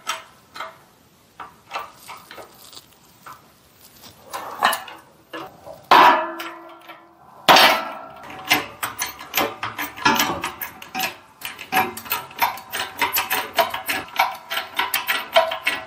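Metal clanking and clicking from a shop press working a mini lathe headstock on steel blocks, pressing its spindle and gear out. Two loud ringing clanks come about six and seven and a half seconds in, followed by a quick run of sharp metallic clicks and taps.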